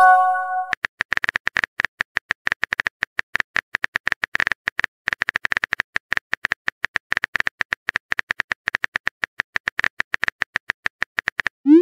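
Chat-app sound effects: a rapid run of phone keyboard tap clicks, several a second, opening with a short chime as a message is sent.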